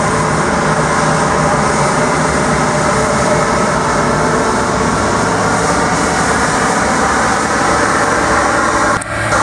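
Scania P94GB diesel sweep-suction truck driving slowly with its sweeper brushes down, giving a loud, steady mechanical running noise over a constant low hum. The noise falls away briefly near the end.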